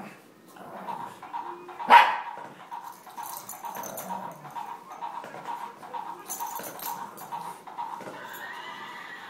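Bullmastiff puppy and shih tzu play-fighting: one loud, sharp bark about two seconds in, with quieter dog noises from the tussle around it.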